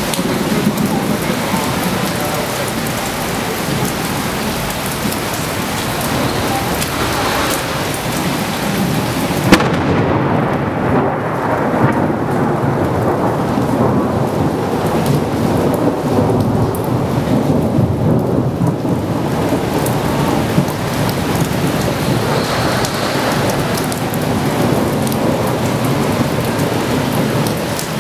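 Thunderstorm: steady heavy rain with thunder rumbling. A sharp crack comes about a third of the way in, followed by a long low rumble.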